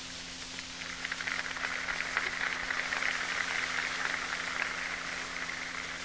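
Large crowd applauding on an old, crackly 1942 recording: the clapping swells about a second in and slowly dies away toward the end, over a steady low hum.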